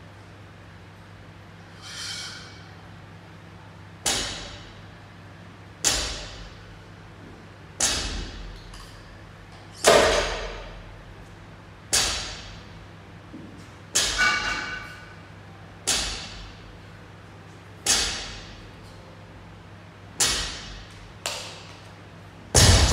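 Loaded barbell with bumper plates thudding onto the floor over and over during a set of deadlifts, about one rep every two seconds, each thud followed by a short ringing echo. A steady low hum runs underneath.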